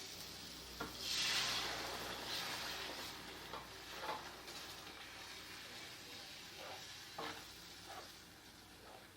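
Water poured into a pan of hot fried tomato-chana masala paste sizzles about a second in and fades over a couple of seconds. A few light taps of a spoon stirring the gravy follow.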